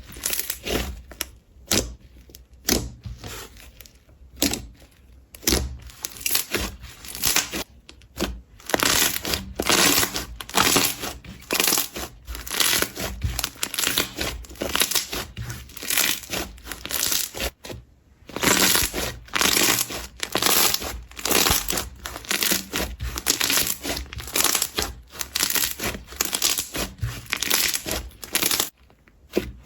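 Slime being squeezed and pressed by hand, giving a dense run of quick clicks and crackles with short pauses between squeezes.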